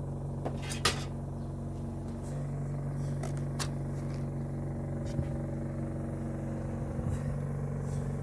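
DeVilbiss medical oxygen concentrator's compressor running with a steady hum while it pumps oxygen to a welding torch. A few sharp clicks, the loudest about a second in.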